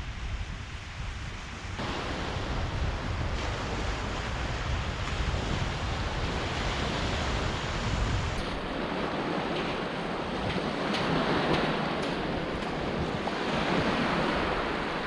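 Waves washing on the shore, with wind buffeting the microphone. The surf grows louder about two seconds in, and the low wind rumble falls away a little past halfway.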